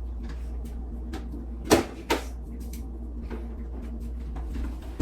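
Two sharp knocks about half a second apart, from things being handled in a kitchen, such as a cupboard or fridge door or an item set down, over a steady low hum.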